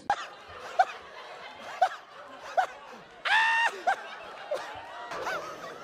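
High-pitched laughter: short rising-and-falling squeals about once a second, with one longer held squeal about three seconds in.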